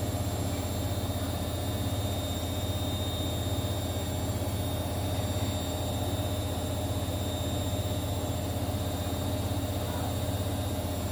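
A steady low mechanical hum with faint, even high-pitched whine tones and a background hiss, unchanging throughout.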